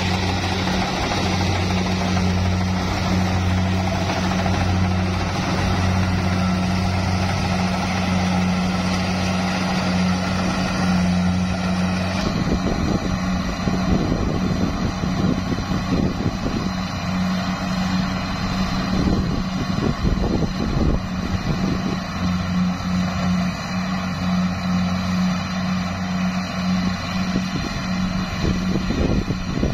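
Rice combine harvester running while it cuts lodged rice, a steady engine and machinery hum heard close to the cutting header. About twelve seconds in the sound cuts to the machine heard from farther off: the hum is weaker in the highs and an uneven low rumble comes in.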